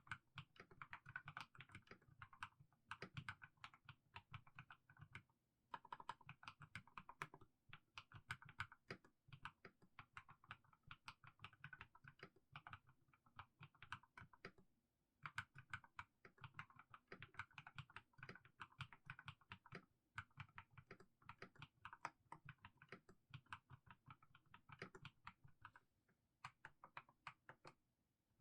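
Mechanical keyboard with fully lubed Haimu Sea Salt switches being typed on at a slow, steady pace: a continuous run of key clacks, pausing briefly about five and fifteen seconds in.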